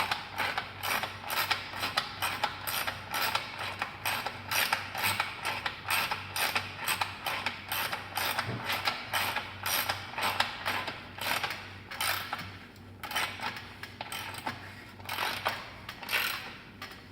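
Ratchet wrench clicking in quick, even strokes, about three clicks a second, as a bicycle bottom bracket cup is screwed in and tightened, with a couple of brief pauses near the end.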